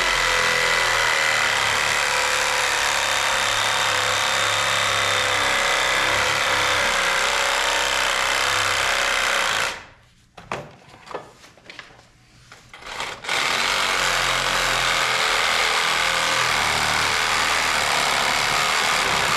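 Milwaukee power saw cutting deep into an oak post. It runs steadily for about ten seconds, stops for about three seconds with a few light knocks, then starts again and cuts to the end.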